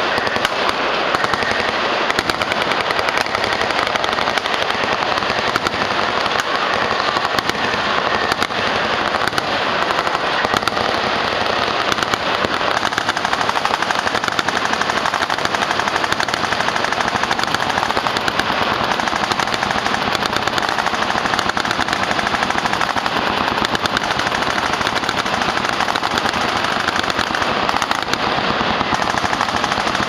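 Many machine guns firing full-auto together: a dense, continuous barrage of overlapping shots with no pause.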